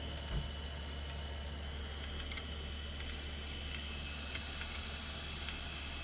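Steady low hum with a faint high tone over an even hiss, with one soft knock about a third of a second in and a few faint ticks.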